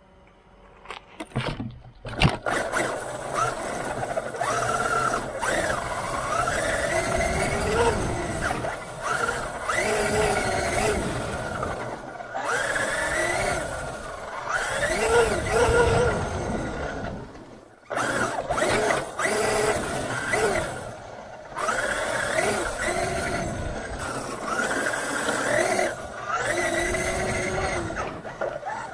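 Traxxas Unlimited Desert Racer RC truck's brushless electric motor and geared drivetrain whining from on board, the pitch sweeping up and down with the throttle. It starts about a second in and cuts out briefly twice.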